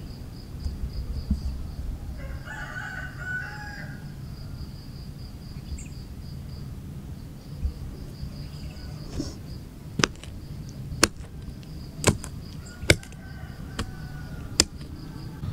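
A rooster crows once, about two seconds in, over a steady high pulsing chirp of insects. In the second half a run of sharp clicks follows, roughly a second apart.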